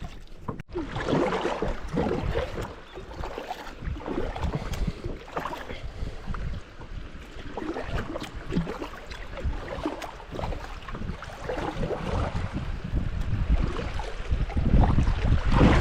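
Water splashing and sloshing around a kayak on a flowing creek, with uneven splashes throughout and wind rumbling on the microphone, growing louder near the end.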